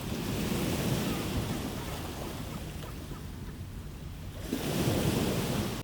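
Steady rushing wind noise on the microphone, swelling about a second in and again near the end.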